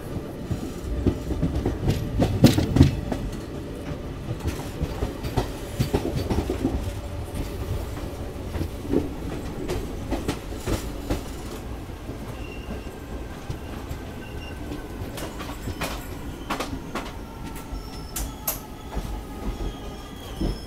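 Indian Railways passenger coach running along the track, heard from its open doorway. There is a steady rumble of wheels on rail, with sharp clicks and clacks from rail joints and points, heaviest in the first few seconds. From about twelve seconds in, a thin wheel squeal joins it as the train enters the station.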